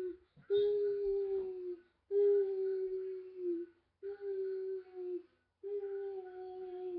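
A boy's voice singing one long held note over and over: four drawn-out notes of about a second and a half each, each sagging a little in pitch, with short gaps between.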